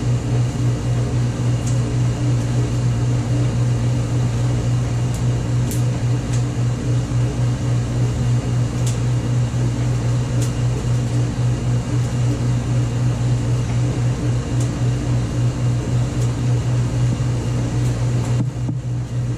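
1953 Hobart 20-quart stand mixer running steadily with a loud, even motor hum. Its dough hook is turning flour and water together into pizza dough.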